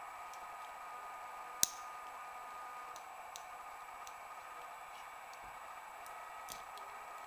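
Small metallic clicks and ticks of a homemade lever pick and a small tensioning screwdriver working inside a 2-lever padlock, with one sharp click about a second and a half in, over a steady hiss.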